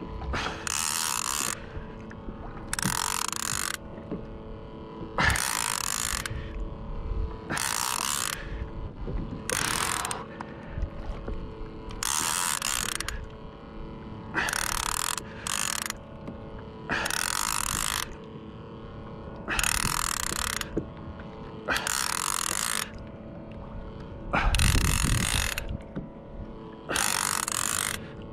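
Fishing reel ratcheting in short clicking bursts, one about every two seconds, while a hooked fish is being fought on a bent rod. A louder low rumble comes in near the end.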